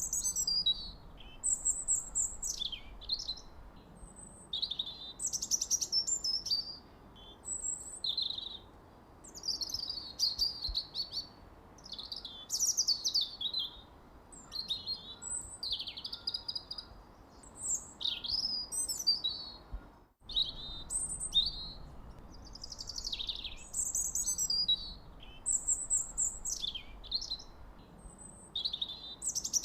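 Songbirds chirping and singing in quick, repeated high whistled phrases, one after another, with a momentary break about twenty seconds in.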